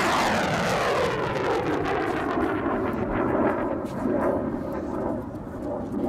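Rocket launch roar: a loud, continuous rushing rumble that sweeps downward in pitch over the first second or two, then holds and eases slightly toward the end.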